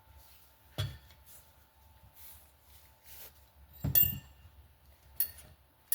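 Sharp metal clinks and taps, four in all, the loudest about four seconds in with a brief ring: steel tools and a valve spring compressor being worked on a motorcycle cylinder head to get at the valve retaining clips.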